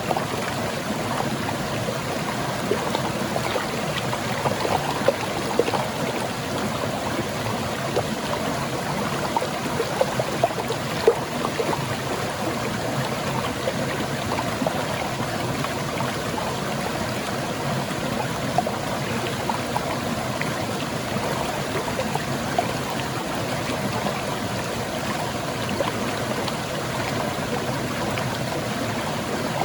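Water of a small rocky waterfall and stream running steadily over stones, a constant rushing and splashing with small irregular splashes.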